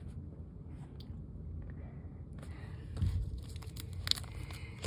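Plastic baseball-card binder pages crinkling and rustling as they are handled, over low handling rumble on the phone's microphone. The crackle starts a little over halfway through, with a thump about three seconds in and a sharp click about a second later.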